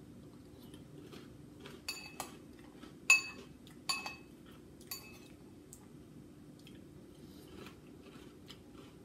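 Metal spoon clinking against a ceramic bowl as it scoops cereal and milk, about six sharp clinks in the first five seconds, the loudest just after three seconds in, then fainter taps. Quiet chewing of soft, milk-soaked cereal underneath.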